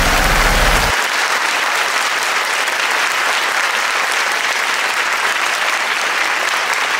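Steady applause of many hands clapping. A low engine rumble underneath cuts off about a second in.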